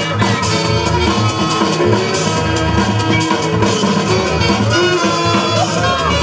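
Loud music with a steady drum beat played over the PA for breakdancers.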